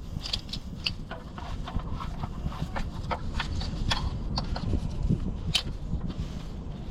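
Scattered light clicks and taps of small parts and tools being handled, with one sharper click about five and a half seconds in, over a steady low rumble.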